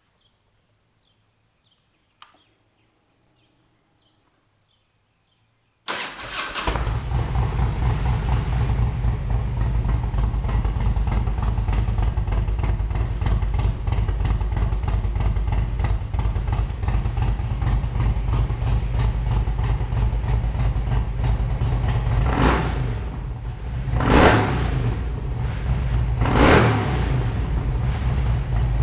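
Harley-Davidson Road King's V-twin, bored out to 95 cubic inches with Andrews 37 cams and Rush mufflers on stock headers, starting suddenly about six seconds in after a faint click, then idling with a deep steady rumble. Near the end the throttle is blipped three times, each a brief rise and fall in revs.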